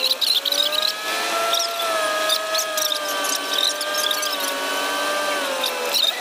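Log truck heard from inside its cab on the road: a steady mechanical whine that drifts slowly up and down in pitch, with light rattling from the cab.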